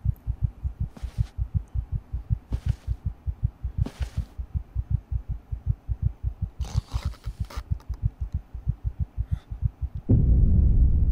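A film soundtrack's low heartbeat-like pulse: rapid, even low thuds, about five a second, with a few soft hissing swells over it. About ten seconds in, a loud low rumble cuts in, the film's sting as the figure appears in the picture.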